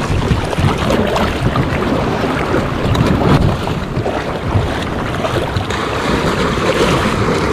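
Wind buffeting the microphone over small waves washing and sloshing around a plastic fishing kayak in the shallow surf.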